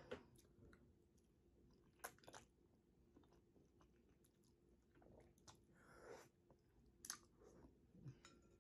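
Faint mouth sounds of someone eating noodles: soft chewing and slurping, with scattered small wet clicks.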